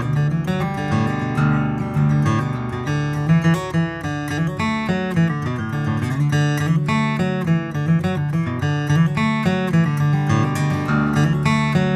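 Taylor 914ce acoustic guitar, with a Sitka spruce top and East Indian rosewood back and sides, being played in a continuous passage of strummed chords and picked notes.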